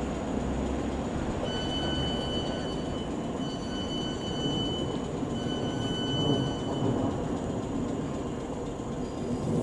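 Class 450 electric multiple unit running slowly over curved track with a steady low rumble, while its wheels give a high, steady squeal on the curve that comes and goes three times.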